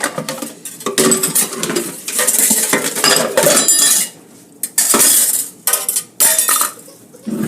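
Dishes and metal cutlery clattering and clinking in a kitchen sink, in several loud bursts broken by short pauses.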